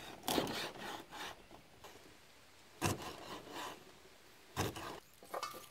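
Meat cleaver chopping eel on a thick wooden chopping block: several sharp chops at uneven intervals, some followed by a short scrape of the blade on the wood.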